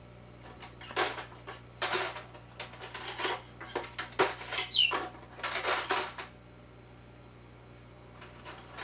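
Metal silverware clinking and clattering as an African grey parrot rummages through a cutlery drawer, in a run of irregular clinks that stops about six seconds in and starts again near the end. One brief high falling squeak comes midway through.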